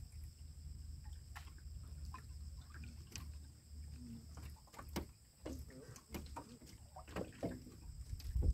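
Quiet outdoor ambience: a steady faint low rumble with scattered light clicks and knocks.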